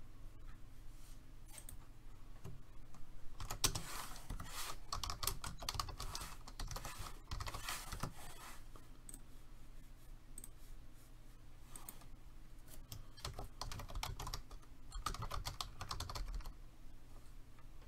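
Computer keyboard being typed on in two spells of rapid keystrokes, with scattered single clicks between.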